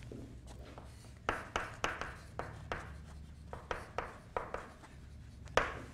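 Chalk writing on a blackboard: a series of short taps and scrapes, about two a second, as a word is chalked up.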